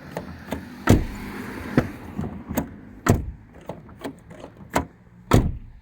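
Mercedes Citan van's hinged door being shut repeatedly, its lock latching onto a striker fitted with a rubber damper: a series of sharp clunks and knocks, the loudest about a second in, about three seconds in and near the end. The shut sounds a little more muffled and slams less loudly with the damper in place.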